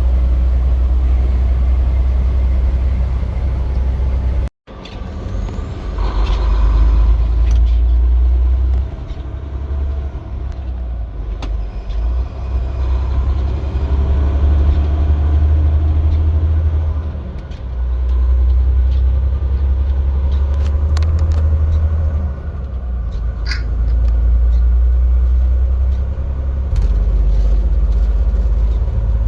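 Deep, steady rumble of road vehicles, changing in level as the footage cuts between scenes, with a brief drop-out about four and a half seconds in and a few scattered clicks.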